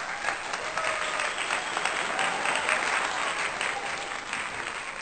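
Audience applauding: many hands clapping together, starting abruptly and fading out near the end.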